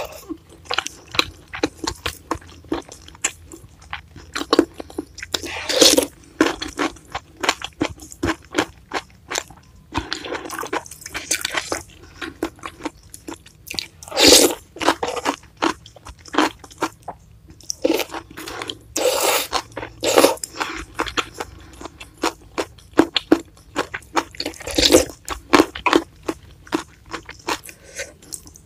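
Close-up eating sounds: wet chewing and mouth clicks of meatball bakso in chilli sambal broth, with several louder slurps of thin noodles.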